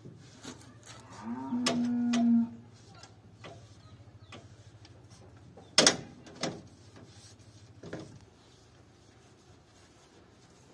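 A cow mooing once, a steady call of about a second starting a little over a second in. A few sharp knocks follow, the loudest about six seconds in.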